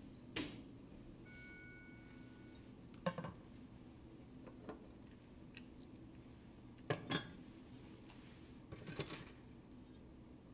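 A few sharp metallic clinks and knocks as a Bunsen burner and a clamp on a ring-stand rod are handled and adjusted.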